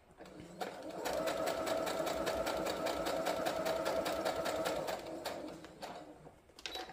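Electric sewing machine stitching a seam through a pieced cotton quilt block. It speeds up about half a second in, runs at a steady pace with a fast, even needle ticking over its motor hum, then slows and stops near the end.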